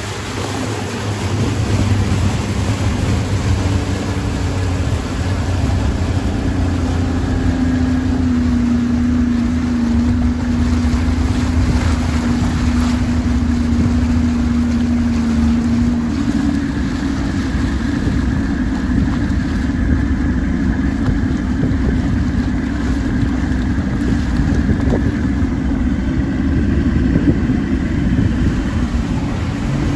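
Fishing boat's motor running steadily as the boat moves across choppy water, with wind buffeting the microphone. A steady hum in the motor sound holds for several seconds and changes about halfway through.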